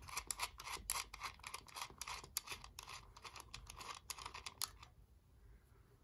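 Faint, quick, irregular small clicks and ticks as the nut and fitting are worked off the air compressor's resettable circuit breaker post by hand. The clicks stop about three-quarters of the way through.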